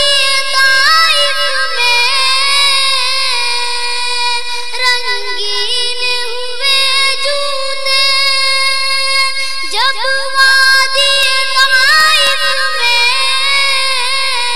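A child's high voice singing an Urdu naat, drawing out long held notes that waver and glide between pitches.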